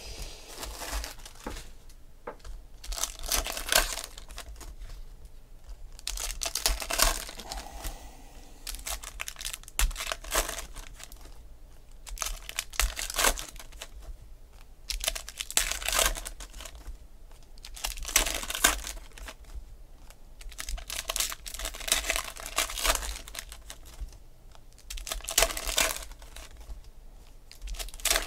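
Foil wrappers of Panini Contenders football card packs being torn open and crinkled by hand, in short crackling bursts every one to three seconds.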